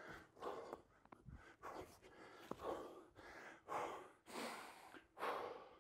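A person breathing hard after a strenuous bodyweight exercise: about six short, faint breaths, roughly one a second.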